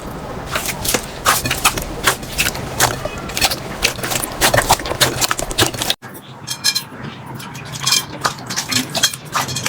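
Slime being squeezed and poked by hand, making a rapid run of sticky clicks and pops. About six seconds in there is a sudden break to another clip, with sparser, crisper clicks.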